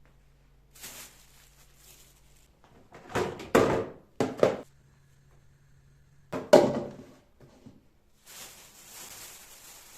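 Household items being handled and set down: several hard thunks and knocks in the middle, then soft rustling near the end.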